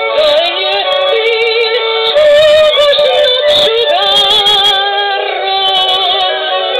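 A woman singing a Hungarian song with wide vibrato, accompanied by a Gypsy band of violin, cello and cimbalom.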